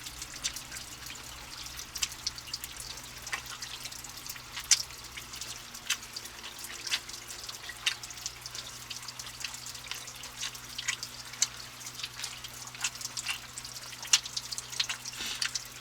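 Water dripping in irregular drops over a steady low hum, the drops sounding in an enclosed space.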